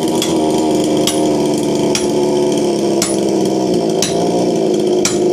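Sharp strikes of a tool on wood, about one a second, over a steady machine drone: tree-cutting work.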